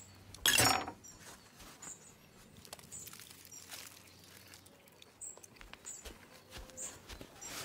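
Aluminium foil torn off a roll with a short, loud rip about half a second in, followed by faint crinkling as the sheet is handled.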